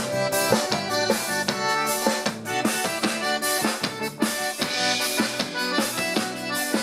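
Live band playing an instrumental passage: an accordion melody over a steady drum-kit beat.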